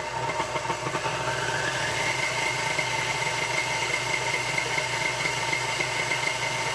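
Tilt-head stand mixer switched on and running steadily, its flat beater mixing egg yolks into a thin liquid of milk, yeast, melted butter and sugar. The motor makes an even whine with two steady tones.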